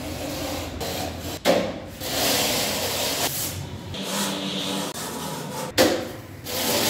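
Gypsum board strips being trimmed flush by hand: a rough scraping along the board edges in stretches, with a sharp crack about a second and a half in and another near the end.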